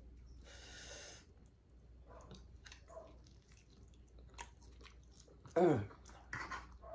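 Close-up mouth sounds of a person chewing a mouthful of food, with many small wet clicks and lip smacks. A breathy exhale lasts about a second near the start, and a short falling vocal "mmm" comes about five and a half seconds in.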